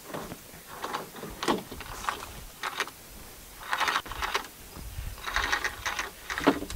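Sailing canoe's halyard rope running as the plastic-tarp sail is lowered. It comes in several short runs of rope rattle and tarp rustle, one with a falling squeak about a second and a half in.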